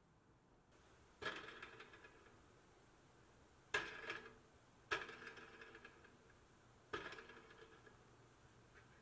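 Four sharp metallic clinks spaced unevenly, each ringing briefly before fading.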